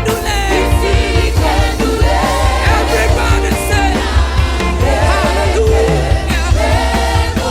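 Church choir singing gospel praise and worship with a live band: voices over a steady beat of bass and drums.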